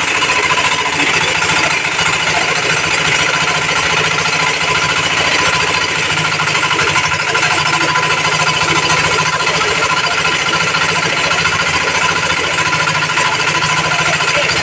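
Small Yanmar single-cylinder diesel engine running steadily under load, driving an abaca fiber stripping machine while abaca stalks are pulled through its blade: an even, rapid engine chatter with a steady high tone over it.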